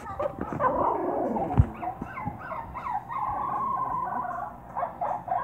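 Howling and whining cries, a run of wavering calls that slide up and down in pitch, with one long steady cry about three seconds in. A single short thump sounds about a second and a half in.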